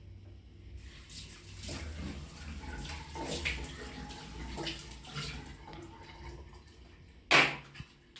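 Water splashing and running at a sink during washing, with intermittent rubbing and handling noises over a low steady hum; a brief, much louder burst about seven seconds in.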